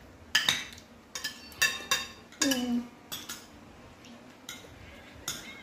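Metal spoons and forks clinking and scraping against ceramic plates as people eat, a quick run of sharp clinks for the first three seconds or so, then quieter.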